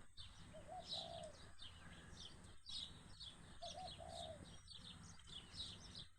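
Sparrows chirping faintly and repeatedly, with a lower call heard twice, about a second in and again about four seconds in.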